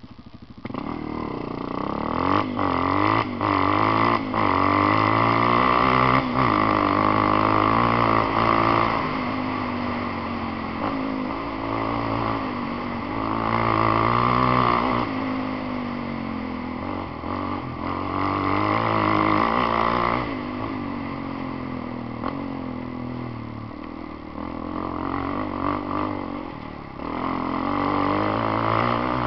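Polaris Outlaw quad bike's engine running under way on a dirt track, its note rising and falling again and again as the throttle is opened and closed.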